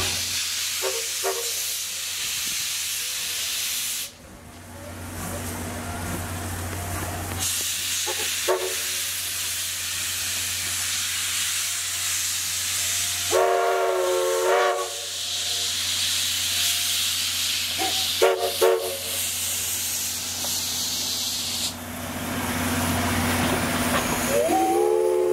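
Class D51 steam locomotive arriving slowly, steam hissing loudly, its whistle sounding several short blasts, the loudest about halfway through with a dip in pitch. Near the end a long whistle blast starts with a rising pitch and holds steady. A steady low hum runs underneath.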